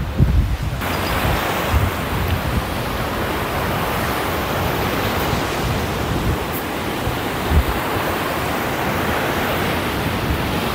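Sea surf breaking and washing up a sandy shore in a steady rush, with wind buffeting the microphone in low rumbles, strongest about the first second.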